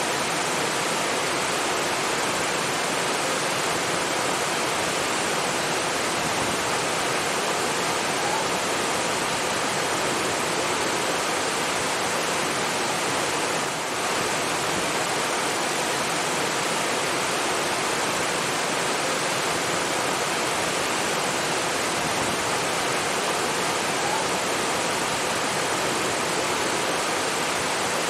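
Water rushing steadily, an even, unbroken hiss of falling or flowing water, dipping briefly about halfway through.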